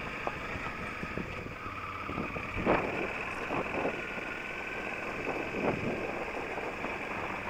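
Suzuki V-Strom motorcycle running over rough ground, with wind rushing on the microphone. A few sharp knocks come from the bike jolting over bumps, the loudest a little under three seconds in.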